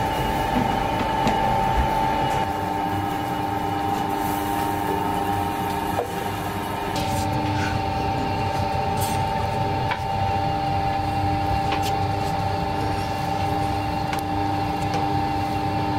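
Spiral dough mixer running, its motor giving a steady whine over a low rumble as the spiral hook kneads bread dough in the steel bowl. The whine shifts slightly lower about seven seconds in.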